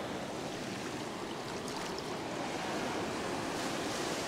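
Ocean surf breaking and washing up the sand: a steady rushing noise that grows a little louder near the end.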